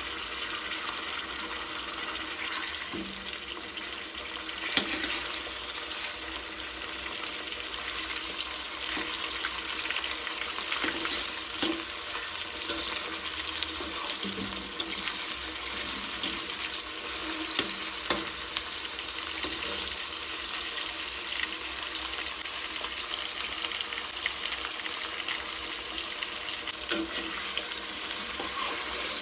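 Food frying in hot oil in a pan with a steady sizzle, and now and then the sharp click of a spoon stirring against the pan.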